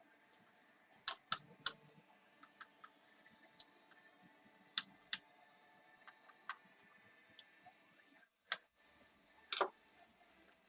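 Sparse, irregular light clicks and taps of small hard parts being handled as a netbook's processor cooler is removed and disconnected from the motherboard.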